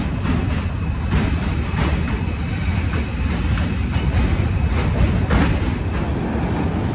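New York City subway train crossing the Manhattan Bridge close by: a steady heavy low rumble with irregular clanks from the wheels on the track, and a brief high squeal a little after five seconds in.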